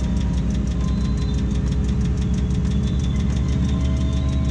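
Diesel engine of a Tadano 180G-5 crane running steadily at idle, heard from inside the operator's cab, with a fast, even pulse.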